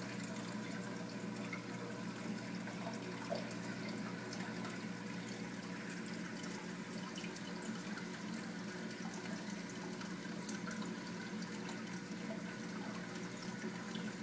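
Reef aquarium water circulating, a steady trickling and splashing with small drips, over a steady low hum.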